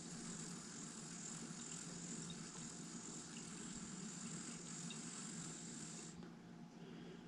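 Puffco Proxy e-rig with a joystick cap, air hissing through it during a long draw, cutting off suddenly about six seconds in.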